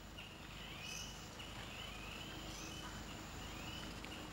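Faint natural outdoor ambience with short, high chirping calls repeating every second or so over a low steady hiss.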